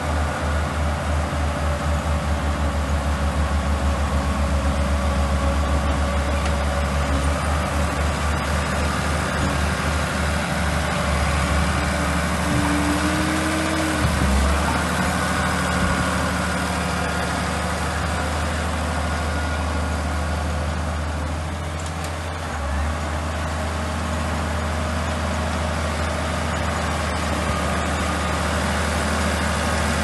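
Heavy diesel engine of a crawler bulldozer running at a steady low speed. It throbs evenly for the first dozen seconds and then settles into a smoother drone.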